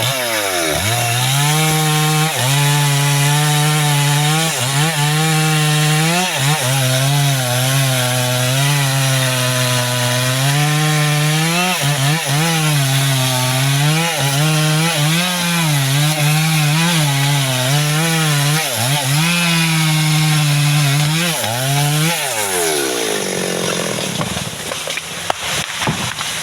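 Chainsaw cutting into mahogany wood under load, the engine pitch repeatedly dipping and climbing back as the chain bites. About 22 seconds in the engine note falls and the saw winds down.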